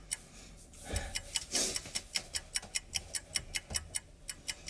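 Regular sharp ticking, about four ticks a second, that comes in nearly two seconds in. A soft low thump and a brief rustle come about a second in.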